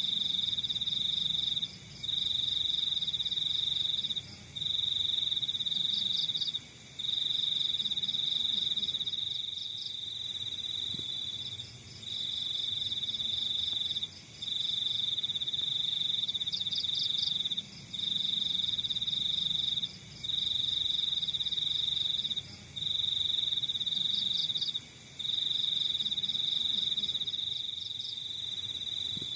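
Crickets singing: a high, steady trill repeats in phrases of about two seconds with brief pauses. Behind it are fainter, rapidly pulsed chirps from other crickets.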